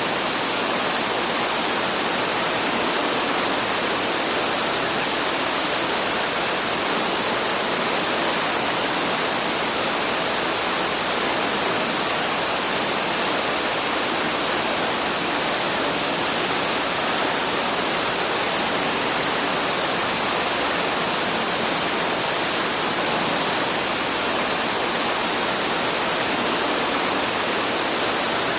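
Waterfall rushing steadily, a dense even roar of falling water with no breaks.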